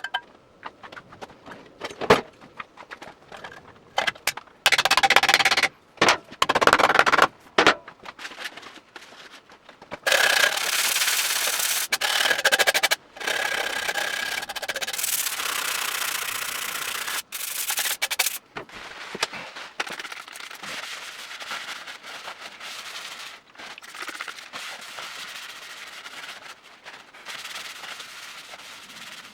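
Abrasive rubbing on a motorcycle exhaust, cleaning it up. It starts as short scrubbing passes, then runs for a continuous stretch of about eight seconds near the middle, then tails off into lighter scratching.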